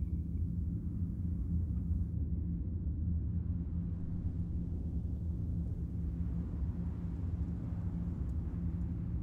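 A low, steady rumbling drone with a faint hiss above it, without melody or beat.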